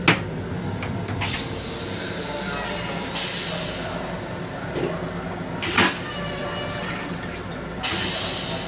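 Plastic toilet lid swung up and knocking once against the wall just after the start, over the steady rumble of an M7 electric railcar under way. Another knock comes a little before the end, and there are two short bursts of hiss, about three seconds in and near the end.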